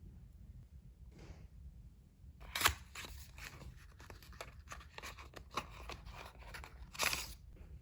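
Rustling, crinkling and light clicks of something being handled, with louder crackles about two and a half seconds in and again near the end.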